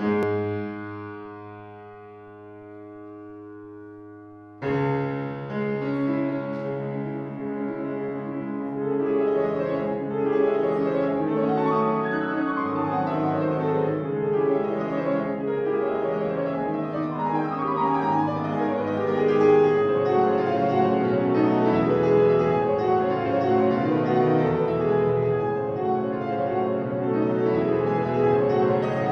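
Solo classical piano on a Steinway & Sons grand: a loud chord struck and left to ring, dying away for about four seconds, then the playing breaks into a continuous flow of notes.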